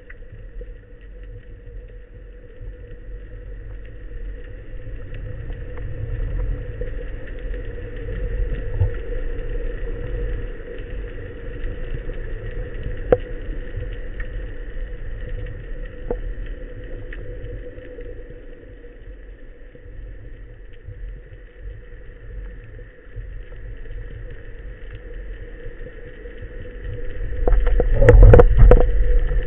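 Underwater sound picked up through a waterproof camera housing on a speargun: a steady low rumble of water with a constant hum, a couple of sharp clicks about halfway through, and a louder burst of rumbling and crackling near the end.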